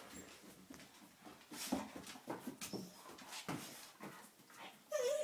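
Pet dog making a string of short, quiet whimpering noises, one every half second to a second.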